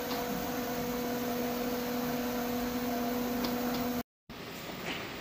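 Explosion-proof electric motor pump running with a steady hum as it draws alcohol through a suction hose from a drum. The hum stops abruptly about four seconds in, giving way to a quieter, even machine-room noise with a few faint ticks.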